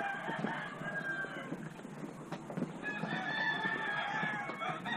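Roosters crowing and chickens clucking, in two long stretches with a short break about two seconds in.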